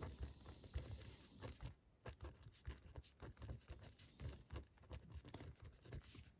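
Faint, irregular scratches and light taps of a gel pen with a 0.5 mm rollerball nib writing on paper, several strokes a second.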